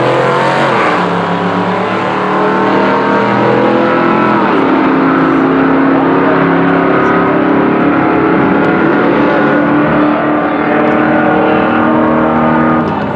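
Drag-racing car engine at full throttle. Its pitch climbs, drops sharply at a gear change about four seconds in, then holds steady and loud before cutting off near the end.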